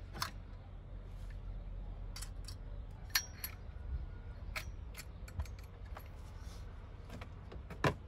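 Irregular clicks and knocks as a Mercedes-Benz W210 steering wheel is worked off its column shaft and lifted out, the sharpest knocks about three seconds in and just before the end.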